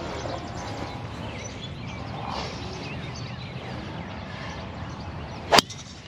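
A golf club striking a ball: one sharp crack about five and a half seconds in, over steady outdoor background noise.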